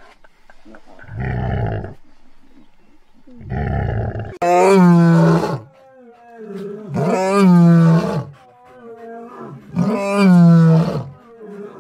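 Lion roaring: two short, low grunts, then three loud, long roars about every two and a half seconds, each starting abruptly.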